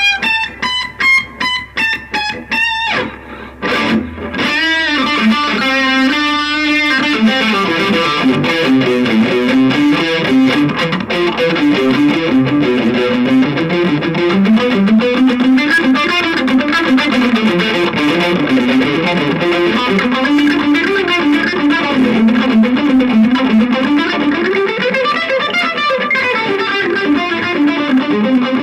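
Electric guitar played through a Shredhead distortion pedal into a cheap amplifier: choppy, separately struck notes for the first few seconds, then a long, continuous stretch of fast distorted lead runs.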